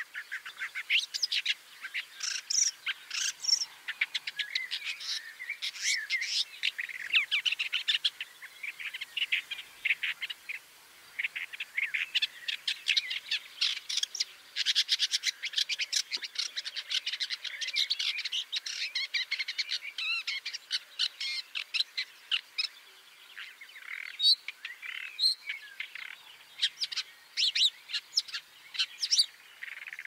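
Woodchat shrike singing: a fast, continuous stream of short, varied chirps and whistles, thinning briefly a couple of times.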